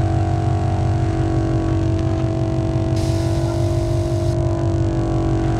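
All Top 150 PSI onboard air compressor running steadily while filling a tire, with a fast low pulsing drone. About three seconds in, a hiss of air lasts about a second and a half.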